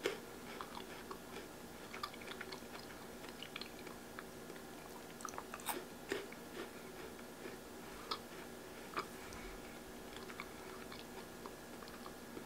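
Mouth chewing a green tea Kit Kat wafer bar, with scattered small crisp crunches, a few sharper ones around the middle.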